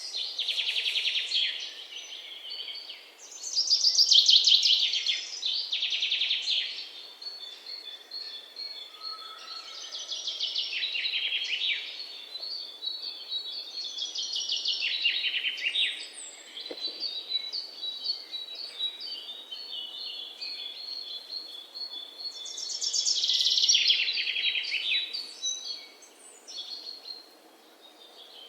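Songbirds singing: a series of fast, high trilling phrases every few seconds, with a thin steady high note through the middle stretch.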